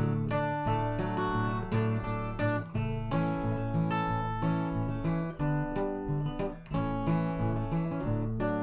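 Acoustic guitar strumming chords in a steady rhythm, an instrumental passage of a folk song with no singing.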